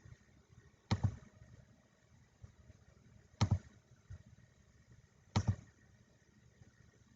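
Three sharp knocks, each a quick double hit, about two seconds apart.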